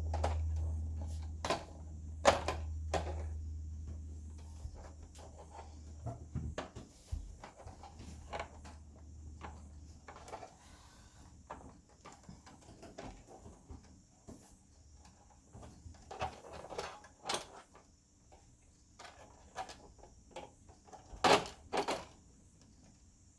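Scattered clicks and knocks of a projector's parts being handled and pulled apart during a teardown, with two louder knocks near the end. A low hum runs under the first ten seconds or so, then stops.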